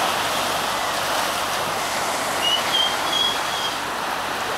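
Steady rush of ocean surf. A few short high chirps sound a little past the middle.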